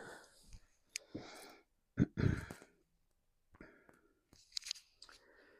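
A man breathing out audibly and sighing several times, with a few light clicks between the breaths.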